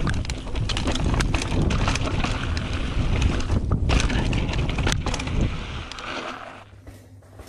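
Wind rushing over the microphone and a mountain bike clattering and rattling over rough trail at speed. About six seconds in, the noise dies down, leaving a low steady hum.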